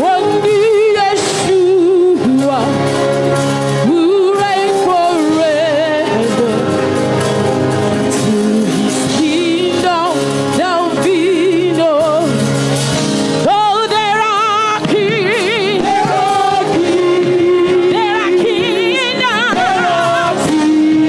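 Worship music: a singer's voice with vibrato over a band's steady held chords.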